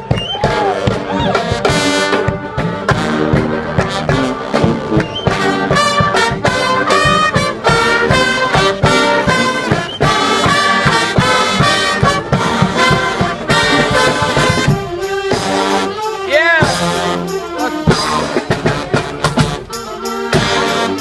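Brass street band playing live: trumpets and trombones over a steady drum beat, with a horn swooping up and down in pitch about three quarters of the way through.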